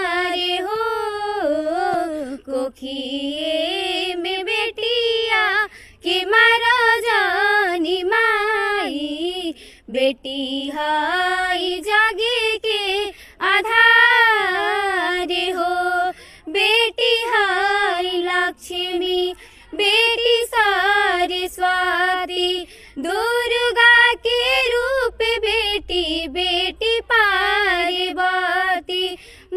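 Two young girls singing a song in sustained, wavering phrases, with short pauses between lines and no accompaniment.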